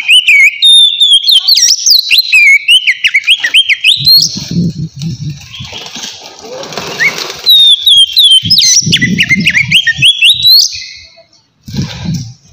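Oriental magpie-robin (kacer) singing in the open 'ngeplong' style: rapid, varied whistled phrases of notes sweeping up and down. It sings in two long bursts with a short break between them.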